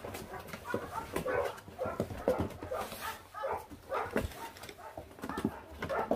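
Four-week-old puppies squabbling over a piece of raw meat, making many short whines and small growls between bouts of chewing. Scattered clicks and scuffles run through it.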